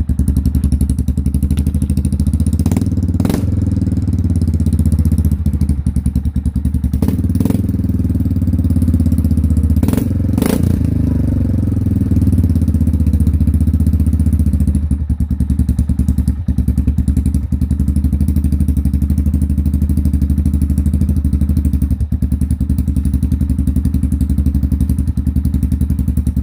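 Yamaha Kodiak ATV single-cylinder four-stroke engine idling through a homemade exhaust: the stock muffler has had its baffles removed and is packed with insulation around a drilled perforated pipe. It is revved briefly a few times in the first half, then settles back to a steady idle.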